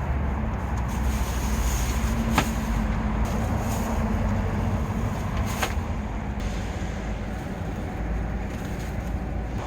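Strong gale-force wind buffeting a small parked car, heard from inside the cabin as a steady low rumble. Two sharp clicks about two and a half seconds in and again near six seconds.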